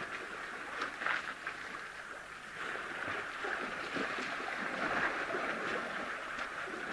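Young African elephants splashing and churning the water in a shallow waterhole, a continuous splashing that grows louder about two and a half seconds in.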